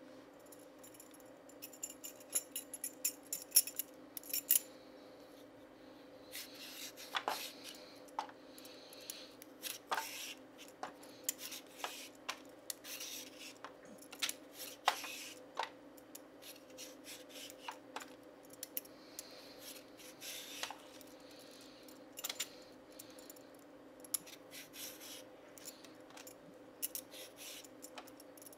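A handheld vegetable peeler scraping a carrot in short, irregular strokes, with sharp clicks among the scrapes, over a faint steady hum.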